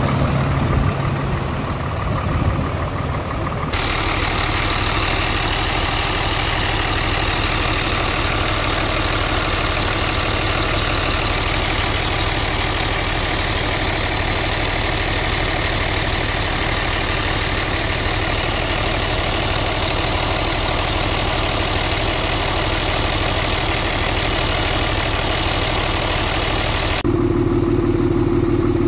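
Scania R 450 Euro 6 truck's six-cylinder diesel engine idling steadily, heard close up in the engine bay. The sound changes abruptly about four seconds in and again near the end.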